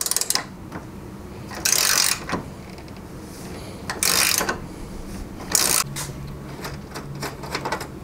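Hand ratchet wrench with a socket clicking in three short, fast runs, with scattered single clicks between, as the radiator mount bracket bolts are backed out.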